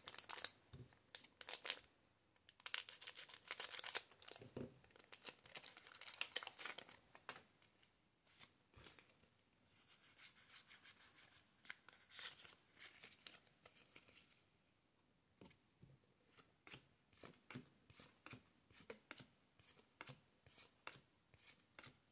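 Quiet foil booster-pack wrapper crinkling and tearing open in dense stretches over the first seven seconds, with more crinkling from about ten to fourteen seconds in. After that come a run of separate light clicks, one or two a second, as trading cards are slid off the stack one at a time.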